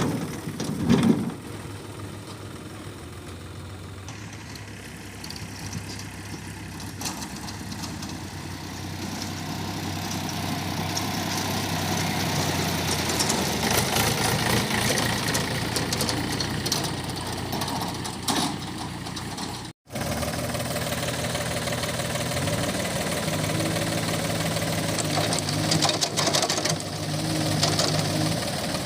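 Diesel engine of a JCB 3DX backhoe loader running while it works, its engine speed and loudness rising through the middle as it takes load. A loud knock about a second in.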